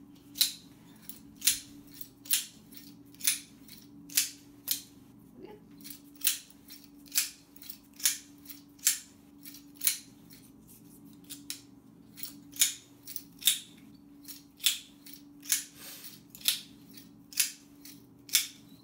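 Safety wire twister pliers being worked to spin 16-gauge copper wire: a sharp metallic click about once a second as the spiral-shaft handle is pulled and pushed back, over a faint steady hum.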